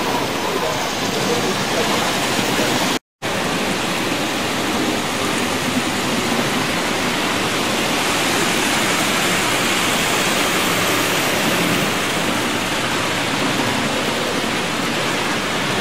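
Steady, even background noise of a model railway exhibition hall with model trains running on the layouts. It cuts out briefly about three seconds in.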